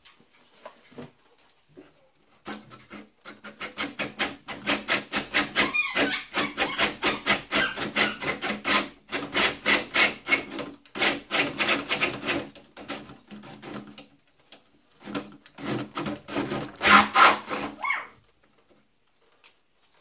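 Cordless drill with a flat wood bit boring into the edge of a solid wooden door to hollow out a mortice lock pocket. It makes a rapid, rhythmic chatter of several strokes a second over the drill's motor hum. It starts a couple of seconds in, pauses briefly a few times, and stops a couple of seconds before the end.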